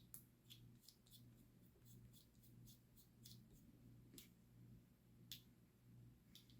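Faint, irregular small clicks and ticks of hand tools and small parts being handled while a screw is fitted into an RC truck's steering linkage and servo horn, a few clicks louder than the rest, over a low steady hum.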